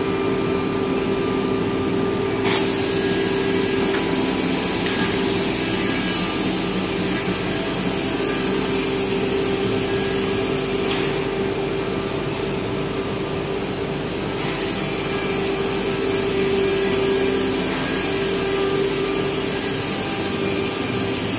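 PMSK PE-668J-SU woodworking machine running, a steady industrial hum with one constant mid-low tone over an airy hiss of motors and air handling. The highest part of the hiss falls away briefly twice, about a second in and again around the middle.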